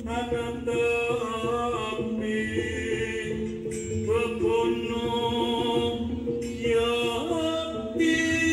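Music with a voice singing long, sliding phrases over held tones, played over a large sound system. Louder bass comes in near the end.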